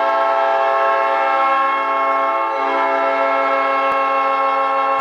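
Hockey goal horn blowing one long, loud blast of several steady tones sounded together as a chord, the signal of a home-team goal.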